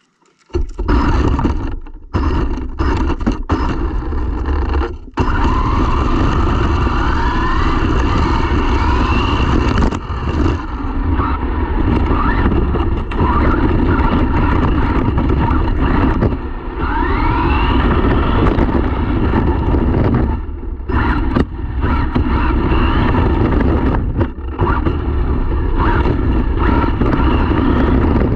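Onboard sound of an RC car with knobby tyres driving fast over rough asphalt and grass: a loud rumble and rattle of tyres and chassis on the ground, with the motor's whine rising in pitch as it speeds up. The sound drops away briefly several times.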